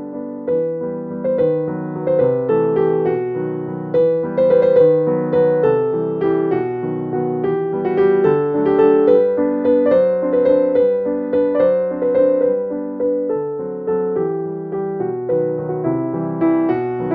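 Background piano music: a flowing melody of struck notes over soft chords.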